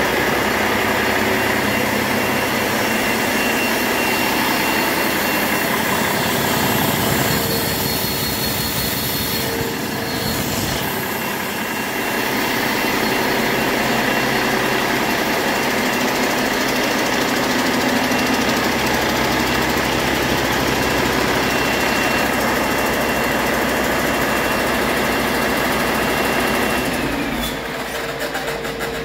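Cummins ISX15 inline-six diesel engine running steadily on an engine stand during a test run, with a high steady whine over the engine note. Near the end the whine falls away and the sound drops.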